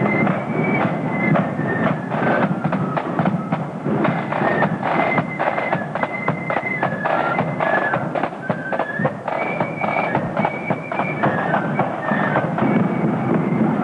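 Marching flute band playing a tune: high flutes carry the melody over steady drumming from the band's side drums.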